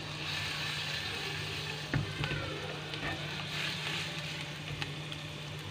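Chopped garlic sizzling in oil in a small frying pan, a steady hiss as the pan is swirled over the gas flame, with one light knock about two seconds in.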